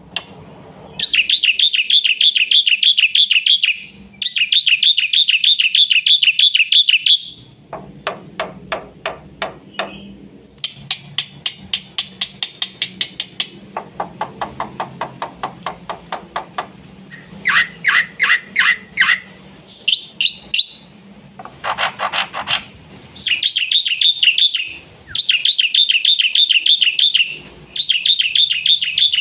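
Black-winged starling (jalak putih) singing a loud, varied song: long rapid warbling phrases alternate with strings of fast clicking notes, harsh buzzy stretches and a short rasping call near the middle, then the warbling phrases return.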